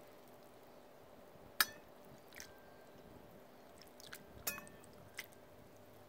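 A metal spoon stirring konjac spaghetti in a ceramic bowl of water to rinse it: a few light clinks of the spoon against the bowl, the sharpest about a second and a half in, a couple of them ringing briefly.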